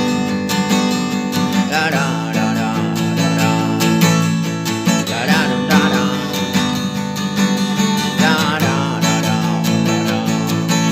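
Instrumental passage of a song: acoustic guitar strumming chords at a steady rhythm.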